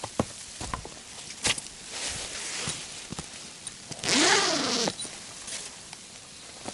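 A zipper pulled open or shut in a single stroke of a little under a second, about four seconds in, its pitch rising and then falling as the pull speeds up and slows. Before it come scattered clicks and rustles of gear being handled.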